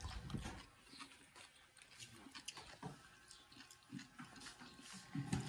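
Faint crunchy chewing of lettuce salad: scattered small crackles and clicks of the mouth at work.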